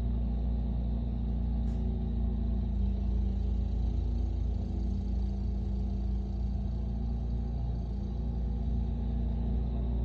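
Snowblower engine running steadily as the machine throws snow, a low, even drone.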